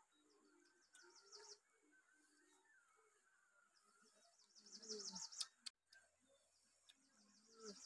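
Faint bird chirping: a quick trilling series of high notes twice, about a second in and again around five seconds in, over near-quiet background. A sharp click stands out just after the second trill.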